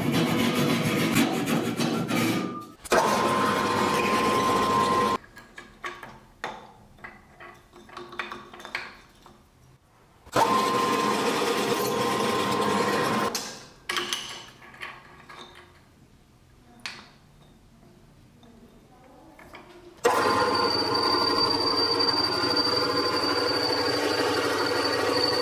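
Drill press running with a twist bit boring into a wooden handle block, in three runs that start suddenly, about three, ten and twenty seconds in, the last with a high whistle over the motor. Between the runs, quieter clicks and knocks.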